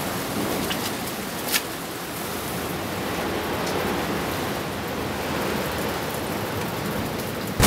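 Steady rushing hiss of ambient noise, with one short sharp click about a second and a half in.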